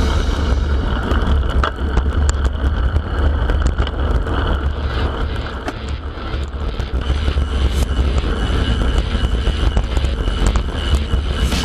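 Bicycle on the move: steady wind rumble on the microphone over tyre and road noise, with scattered small clicks and rattles.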